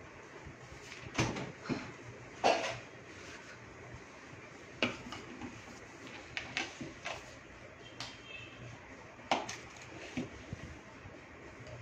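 About ten irregular knocks and clinks of a spatula and steel bowl of whipped cream being handled on a worktop.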